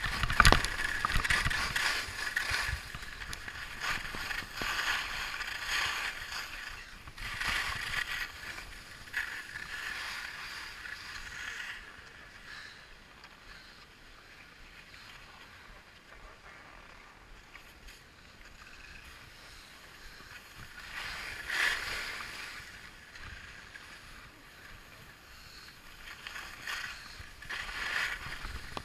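Skis scraping and carving over packed, tracked piste snow in swelling rushes, with a sharp knock just after the start. The scraping grows quieter for a while in the middle and swells again twice near the end.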